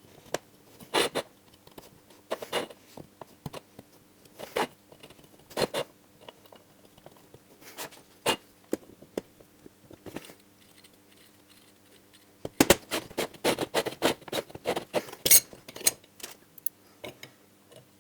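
Parts of a Honda CB400F clutch being handled and fitted together: the basket, the gear, the new teflon damper blocks and the screws. Scattered clicks and knocks come a second or two apart, then a busy run of them about two-thirds of the way through. A faint steady hum lies beneath.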